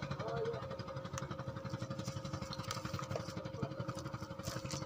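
A small engine idling steadily with a fast, even putter.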